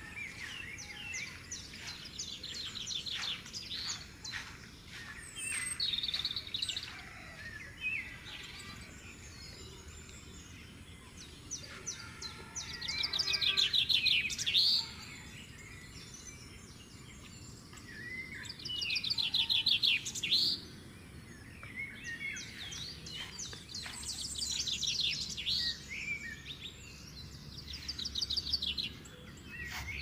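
Songbirds singing in the trees, with bursts of rapid trilled and chirped phrases coming again every several seconds, the loudest a little under halfway through and about two-thirds of the way in, over a faint steady outdoor background.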